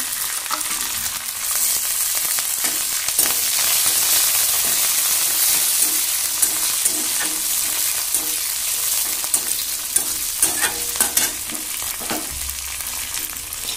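Tempering of mustard seeds, dried red chillies, garlic and curry leaves sizzling in hot oil in a metal kadai, stirred with a metal spatula. Toward the end the spatula clicks and scrapes against the pan several times.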